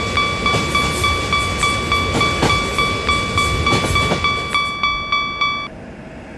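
Japanese railroad crossing bell ringing its 'kan-kan' chime about three strokes a second over the rumble of a passing train. The bell cuts off suddenly near the end.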